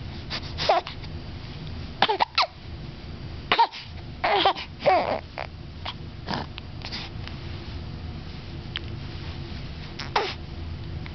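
A seven-week-old baby hiccuping: short, sudden hiccups at irregular intervals, each with a little squeak of voice, some in quick pairs and a longer gap before the last one.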